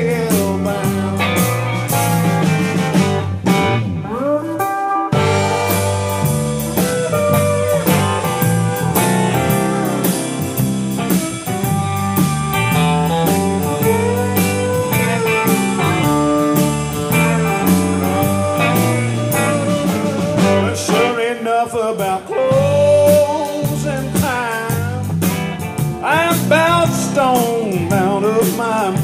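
Live country band playing an instrumental break: drums, electric bass, electric and acoustic guitars and pedal steel guitar. In the second half the lead lines slide and bend between notes.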